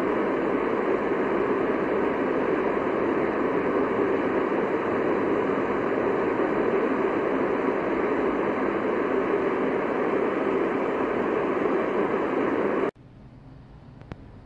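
Propane torch burning steadily into a small homemade forge: an even rushing roar of flame. It cuts off suddenly about 13 seconds in, leaving a quiet background with a single short click near the end.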